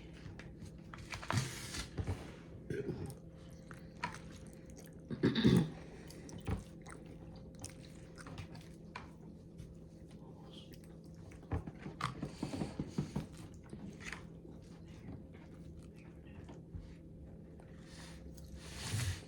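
Chewing of ramen noodles, close to the microphone, in short irregular bouts with pauses between them; the loudest bite comes about five seconds in.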